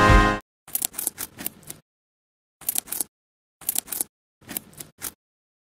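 Background music cuts off just after the start. Then come four short bursts of clicking, rustling and scraping with dead silence between them: a plush puppet and gummy candies handled against a plastic tray.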